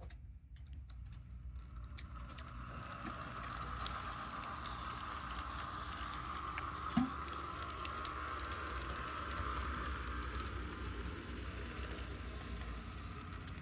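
HO scale Atlas GP-7 model diesel locomotive pulling its train along the track, its electric motor and gears running with a steady whir and wheels clicking on the rails. A few clicks at the start and one brief knock about seven seconds in.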